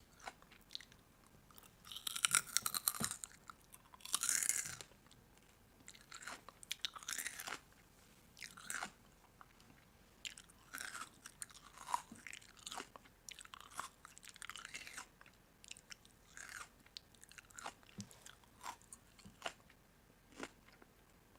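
Crunchy food being bitten and chewed: a run of short, crackly crunches, the loudest two about two and four seconds in.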